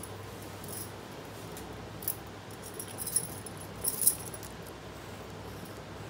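Glass bangles on the drawing hand's wrist clinking lightly as the hand moves over the paper: a few short high jingles about two to four seconds in. A steady low hum runs underneath.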